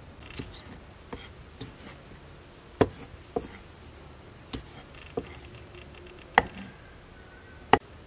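Knife striking a cutting board while cutting wood ear mushrooms: irregular single knocks and clicks, three of them sharp and loud, about three and six and a half seconds in and near the end.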